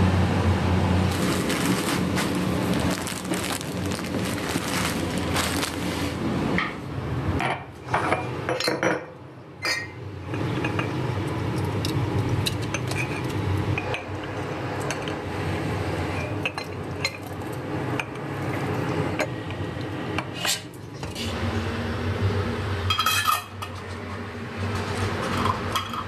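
Kitchen clatter: glass jars, metal utensils and pots clinking and knocking as jars are filled with a chunky tomato-pepper mixture and capped, over a steady low hum at the start and again near the end.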